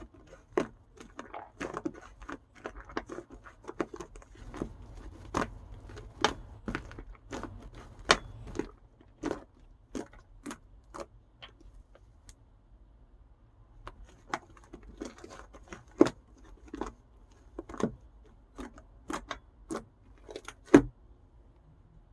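Irregular sharp clicks and taps, one to three a second, with light crinkly rustling between them, like small objects or paper being handled; there is a louder knock near the end.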